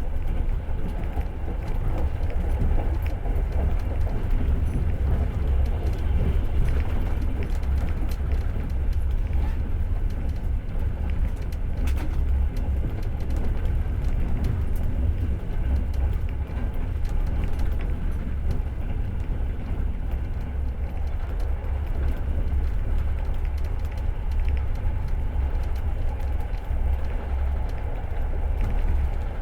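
Passenger train carriage running along the rails, a steady low rumble of wheels and running gear heard from inside the car.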